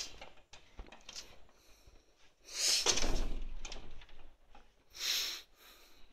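Wooden wardrobe doors being handled and moved: a longer noise starting about two and a half seconds in and lasting about a second, and a shorter one near five seconds.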